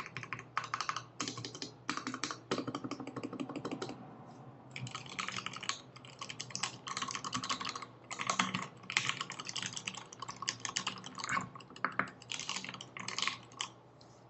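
Typing on a 60% mechanical keyboard with lubed Tealios linear switches, GMK keycaps and an aluminium case: runs of rapid key strikes, broken by a short pause about four seconds in and another near the end.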